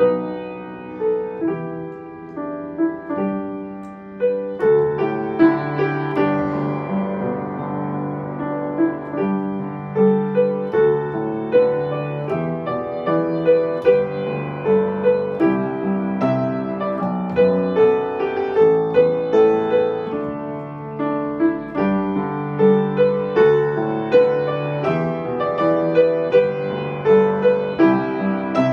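Upright piano played solo, chords and melody of a ballad, softer for the first few seconds and then fuller from about four seconds in.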